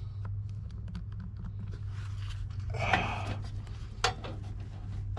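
Light hand-handling sounds of tools at a work surface: scattered small clicks, a short swish about three seconds in and a sharp click just after, over a steady low hum.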